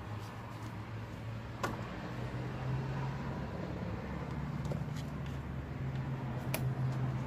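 A steady low hum growing gradually louder, with a few sharp clicks.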